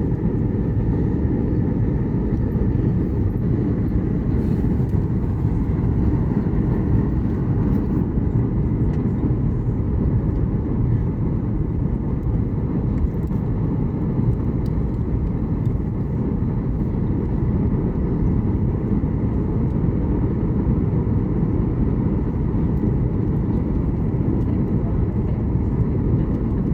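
Steady cabin noise inside a Boeing 737 MAX 8 airliner in flight: a constant low rumble of airflow and engines, with a faint steady high whine above it.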